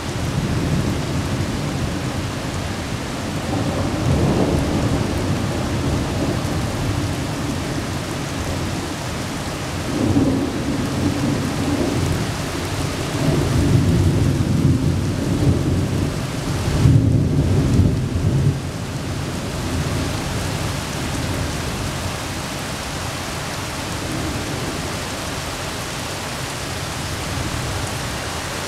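Thunder rumbling in repeated long rolls over a steady hiss of rain, the loudest rumbles coming about four, ten, fourteen and seventeen seconds in.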